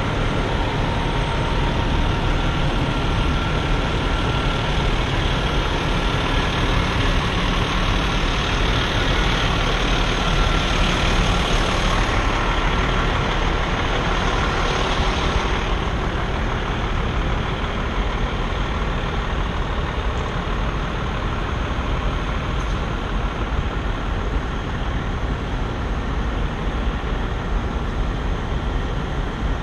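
Steady rumble of idling diesel semi trucks.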